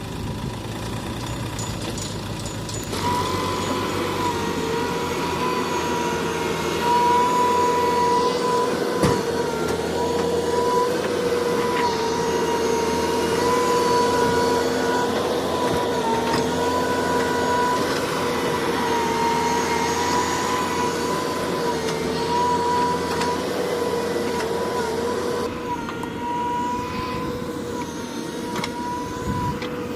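Heavy diesel machinery working, with a steady high whine that sets in about three seconds in and eases near the end, typical of a backhoe loader's hydraulics under load. A sharp knock comes about nine seconds in.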